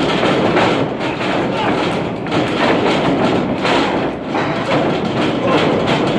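Repeated thuds from wrestlers' feet, bodies and strikes landing on the wrestling ring's canvas, over crowd shouting and chatter.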